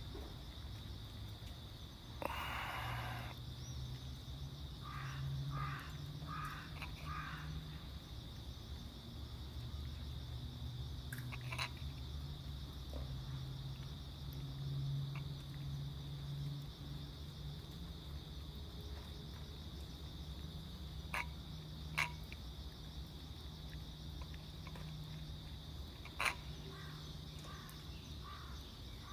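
Crickets trilling steadily over a low steady hum. A short burst of rustling noise comes about two seconds in, and a few sharp clicks follow later.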